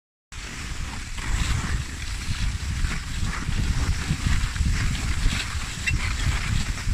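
Wind rumbling on the microphone, with scattered soft crackles and a brief high chirp about six seconds in.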